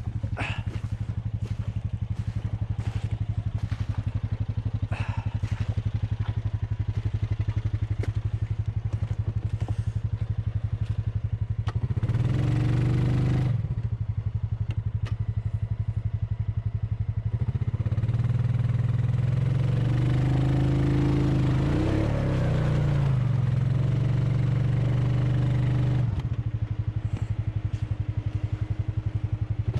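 ATV engine running at a steady idle, with two longer bursts of throttle: a short one about twelve seconds in and a longer one from about eighteen to twenty-six seconds in.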